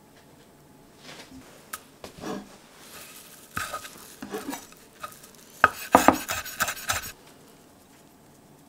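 Spatula scooping fried rice, scraping and tapping against a metal frying pan and a bowl: scattered soft scrapes, then a quick run of sharp clicks about six seconds in.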